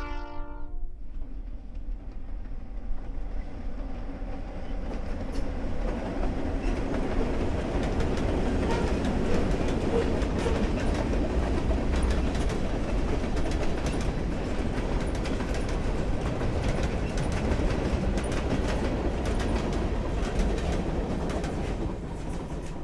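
Freight train passing close by, pulled by a first-generation EMD diesel locomotive. Its horn cuts off in the first second, then the diesel's low rumble gives way to a long string of boxcars and covered hoppers rolling past, wheels clicking over the rail joints. The sound falls away at the end as the last cars go by.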